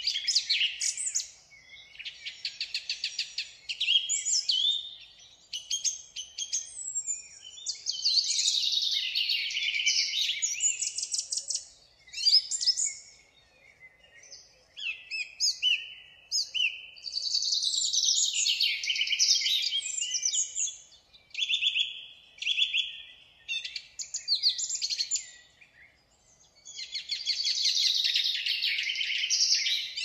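Small birds chirping and singing with high-pitched chirps and fast trills. They come in phrases a few seconds long, with short pauses between them.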